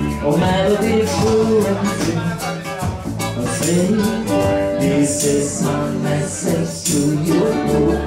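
Live ukulele band playing a reggae song: strummed ukulele over a ukulele bass line and a foot drum beat, with men singing into microphones.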